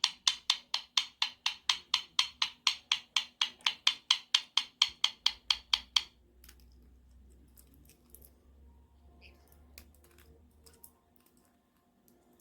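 A white-bellied caique making a rapid run of pen-like clicks, about four or five a second, evenly spaced. They stop abruptly about six seconds in, leaving only faint scattered ticks.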